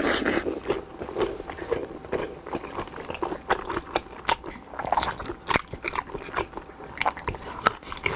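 Mouth chewing braised pork skin rolls: many short wet clicks and smacks at an uneven pace, with a bite at the start.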